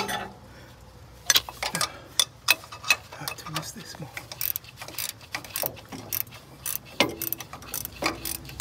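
Ratchet wrench clicking in short, irregular runs of several clicks a second, loosening the mounting bolts of a truck's air brake relay valve.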